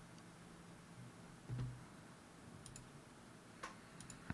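A few faint, scattered clicks of a computer mouse, most of them in the second half, with one soft low thump about a second and a half in.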